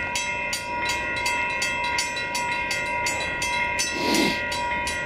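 Level-crossing warning bell ringing with evenly spaced strikes, about four a second, its tone hanging steady between strikes: the crossing signals are active for an approaching train. A brief rush of noise comes about four seconds in.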